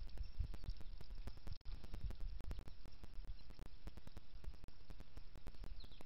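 Outdoor bird-feeder ambience: a steady low rumble with many small clicks and taps, and a short high bird chirp near the end.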